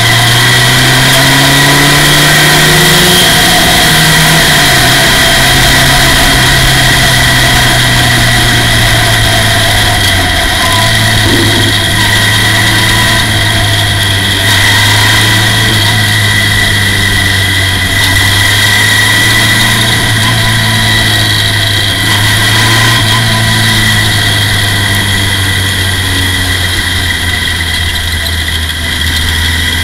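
Formula Ford race car's engine running hard on track, heard from the cockpit. Its pitch climbs over the first few seconds, drops sharply about ten seconds in, then holds with small rises and falls through the corners.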